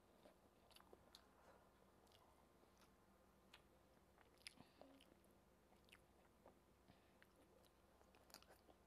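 Faint sounds of a person eating rice and kidney-bean curry by hand: chewing and small wet clicks of mouth and fingers. The sharpest click comes about four and a half seconds in, with a few more near the end.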